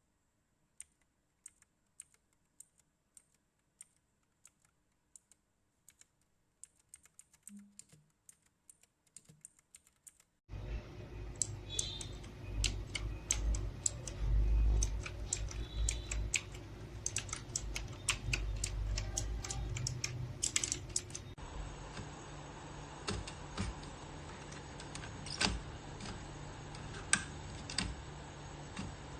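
Keys being typed on a DAREU EK87 V2 mechanical keyboard. Single, spaced keystrokes come first, speeding up. From about ten seconds in there is quick continuous typing over a steady low hum.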